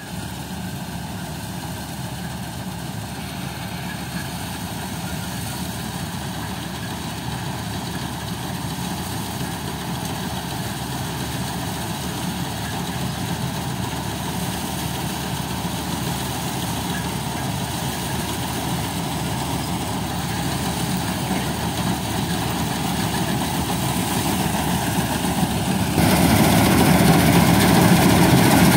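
Punjab 930 combine harvester running steadily while it cuts and threshes a soybean crop, growing gradually louder as it approaches, then suddenly louder near the end as it is right up close.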